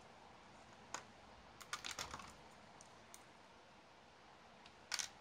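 Small sharp clicks and clacks of tiny hard plastic and metal parts and a screwdriver being handled: one click about a second in, a quick cluster around two seconds, and a louder double click near the end.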